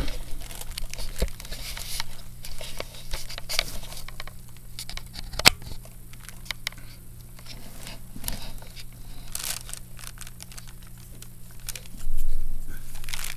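Close handling noise: rustling and crackling with scattered sharp clicks, one sharp click about five seconds in and a louder rustle near the end, over a steady low electrical hum.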